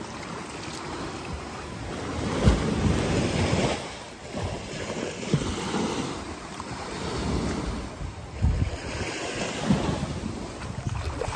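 Sea waves and wind, with wind buffeting the microphone in gusts and a few low thuds.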